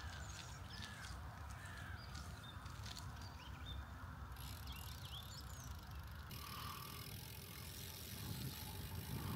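Gravel bike being ridden, a low steady rumble of tyres rolling, with a few faint bird chirps.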